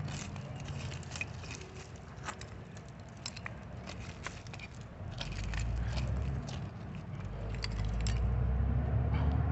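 Broken glass shards and old bottles clinking and scraping as they are dug out of the dirt by hand, in a string of short sharp clicks. A low rumble builds about five seconds in.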